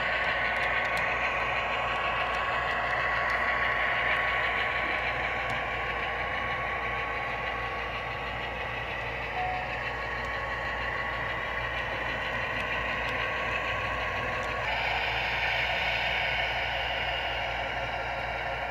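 Model diesel switcher locomotive's DCC sound decoder playing a diesel engine running steadily through the model's small speaker as it pulls slowly. The sound changes abruptly about fifteen seconds in.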